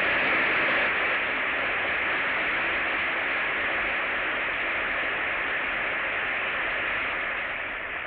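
Steady applause from a large concert audience, a dense, even clapping that eases off slightly near the end.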